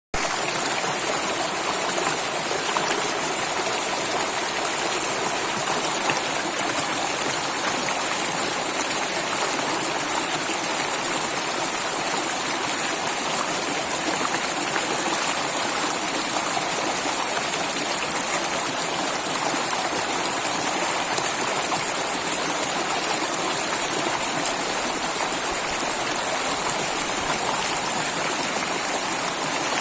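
Stream water flowing steadily, an even, unbroken rush.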